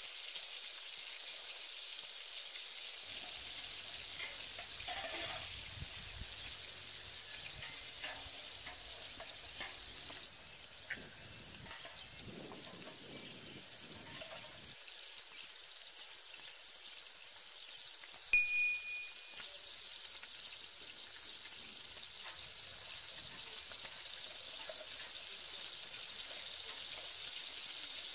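A pot of abgoosht broth cooking over a wood fire, giving a steady sizzling hiss, while vegetables are added and stirred in with a few soft knocks and clicks. About eighteen seconds in, a single sharp metallic ding as the spoon strikes the metal pot, the loudest sound.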